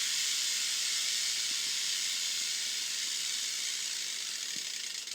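Profile Elite cassette hub freewheeling on a spinning BMX rear wheel: the ratchet pawls make a fast, continuous buzz that slowly fades as the wheel loses speed, breaking into separate clicks right at the end.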